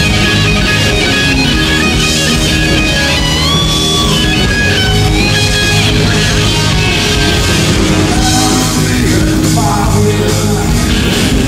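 Southern rock band playing live and loud: electric guitars over bass and drums, with a lead line of bent, gliding notes.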